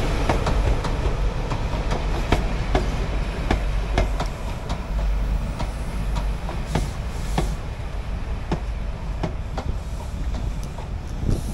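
Mark 3 passenger coaches of an HST rolling past close by: a low rumble with repeated sharp clicks as the wheels cross rail joints.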